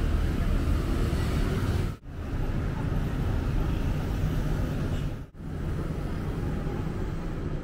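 City street traffic, with cars and motor scooters driving by and their engines humming steadily. The sound drops out for an instant twice, about two seconds in and again past five seconds.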